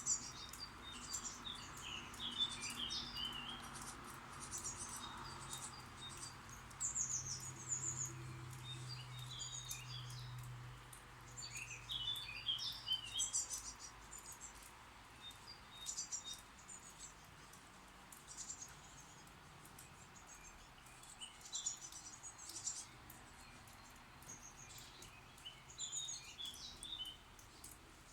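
Chicks in a nest box chirping in short bursts of high, rapid cheeps every few seconds, begging as the adult birds bring food.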